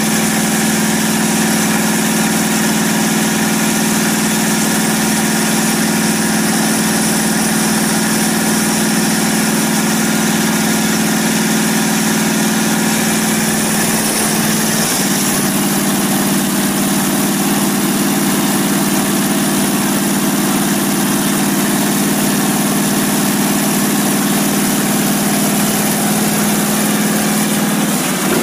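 Freshly rebuilt Daimler-Benz OM442LA twin-turbo V8 diesel running on its first start after a complete rebuild, idling steadily. The idle speed drops a little about halfway through and picks up again near the end.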